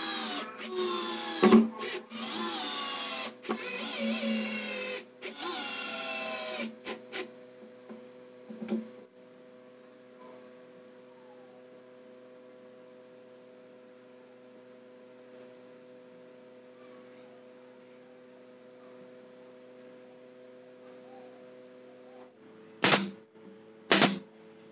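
Electric screwdriver driving screws into plywood: the motor whines in several short runs, its pitch gliding up and down, over the first seven seconds. After that only soft background music plays. Near the end a power tool gives three short bursts.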